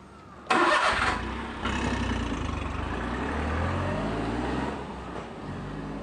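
A motor vehicle's engine starts with a sudden loud burst about half a second in, then runs and rises in pitch as it speeds up, dropping away after about four and a half seconds.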